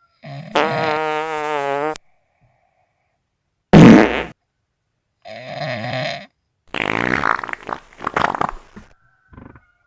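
A series of about five separate fart sounds with silence between them: the first is long and pitched with a wobbling tone, one about four seconds in is short and the loudest, and a longer one near the end is sputtering and crackly.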